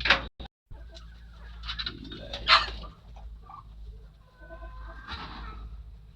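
Domestic chickens and chicks calling in a poultry house, with faint short calls about four to five seconds in. A sharp knock at the start and a short, loud noisy burst about two and a half seconds in stand above the birds.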